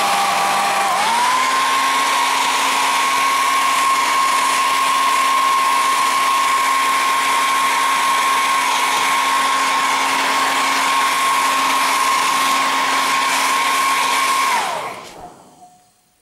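Handheld hair dryer running, blowing hot air onto a TV main board: a steady rush of air with a motor whine that dips in pitch briefly near the start and recovers. It is switched off near the end, the whine falling as the motor winds down.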